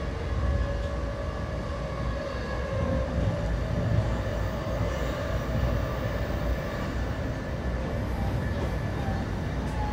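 Amtrak passenger train running at speed, heard from inside the coach: a steady low rumble of the wheels on the rails, with a faint steady tone held above it.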